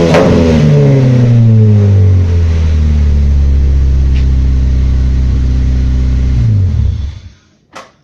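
Naturally aspirated VW Golf Mk3 engine coming down from a rev, its note falling over the first two seconds or so and settling into a steady low idle. About seven seconds in the engine winds down and stops, followed by a single short click.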